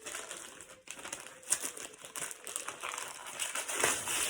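Wrapping paper being torn and crumpled as a present is unwrapped, an irregular crinkling rustle that grows louder near the end.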